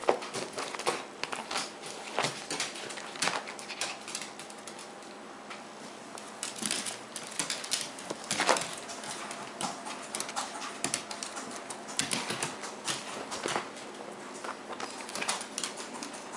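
Irregular clicking and tapping of a Yorkshire terrier's claws on a hardwood floor as it scuffles with a plush toy.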